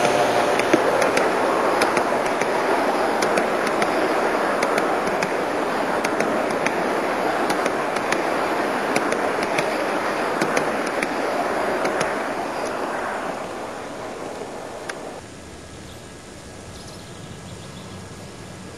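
Large-scale (1:29) model passenger cars rolling past close by on garden-railway track, with a steady rumble of metal wheels on rail and sharp clicks as the wheels cross rail joints. The rumble fades as the train moves off, then drops suddenly to a faint low hum about 15 seconds in.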